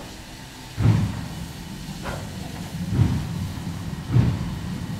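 Steam locomotive 52 8131-6, a two-cylinder class 52.80 2-10-0, starting slowly away. Its exhaust gives slow chuffs with steam hiss, about one a second, beginning about a second in.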